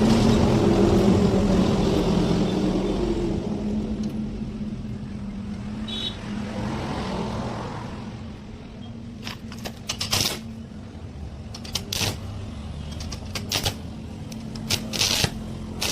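Stick (arc) welding: the arc crackles over a steady machine hum for the first half, fading away about halfway through. Then come sharp knocks in irregular clusters, while the hum carries on.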